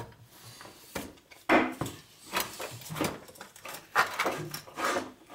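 A man straining on a long breaker bar with a 19 mm socket on stuck control arm bracket bolts: several short effortful grunts mixed with clinks and knocks of the bar and socket against the bolt. The bolts stay seized.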